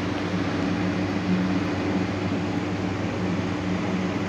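Steady hum over an even hiss from running ceiling fans and a humming sound system, with no other event.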